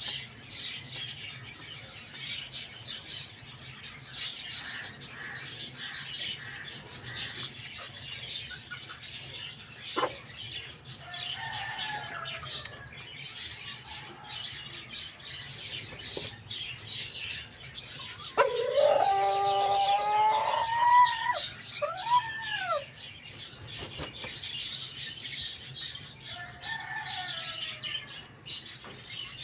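A rooster crows, one long loud crow about two-thirds of the way through with a short falling tail, and fainter crows from farther off earlier and near the end. Small birds chirp steadily throughout.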